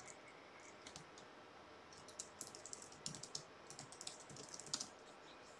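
Computer keyboard typing faintly: separate keystroke clicks coming in a few short bursts as a command is typed.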